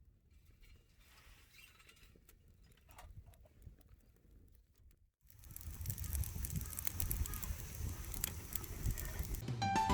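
Wood fire crackling with frequent sharp pops, much louder from about five seconds in.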